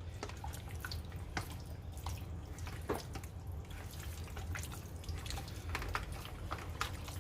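Small wet clicks and squelches of raw chicken pieces coated in olive oil being handled and tossed, scattered irregularly over a steady low hum.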